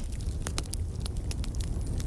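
Wood fire in a fireplace crackling, with scattered sharp pops and snaps over a steady low rumble of burning.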